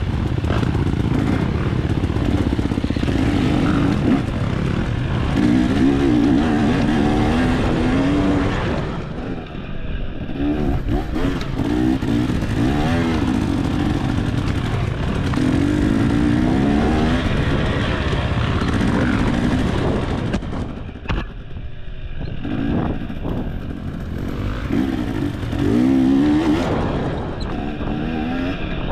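Dirt bike engine being ridden hard on a trail, its revs rising and falling again and again as the throttle is worked, easing off briefly about two-thirds of the way through.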